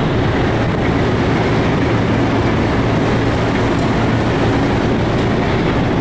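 Steady drone of a ferry under way: a low engine hum under a constant rush of wind and wake water.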